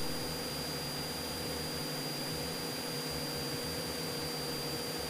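Cessna 172 in level cruise: steady engine and propeller drone in the cabin, heard as an even hiss with a faint steady hum. A brief click comes right at the start.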